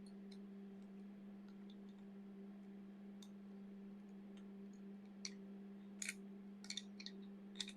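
Faint small clicks and short crackles of a threaded fitting and thread tape being handled on an air regulator, coming more often in the last few seconds, over a steady low hum.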